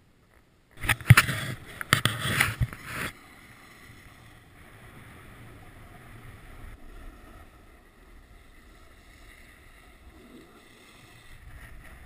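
Sliding over packed snow, heard through a body-worn action camera's microphone with wind on it. About a second in there are two seconds of loud, rough scraping and buffeting. Then it settles into a steady low rush.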